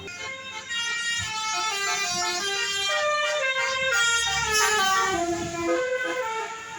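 Bus 'telolet' multi-tone air horn playing a quick melody of stepped notes. It grows loud about a second in and drops away near the end.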